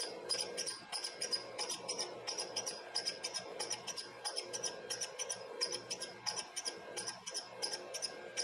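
Valve-grinding machine running, its wheel grinding the tip of a new Model T valve stem down to length, run dry without coolant. A steady motor hum sits under a rapid, uneven chirping rasp of about four scrapes a second as the stem is worked against the stone.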